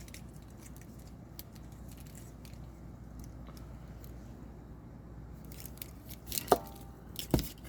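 Handling noise from a small plastic model figure and the things around it: faint scattered clicks and rustles over a steady low hum, with a brief squeak and then a sharper click near the end.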